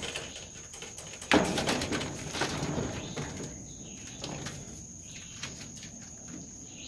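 Rabbits shuffling and hopping in hay on a wire hutch floor: a rustling scuffle a little over a second in that fades over the next two seconds, then scattered light scrapes and clicks.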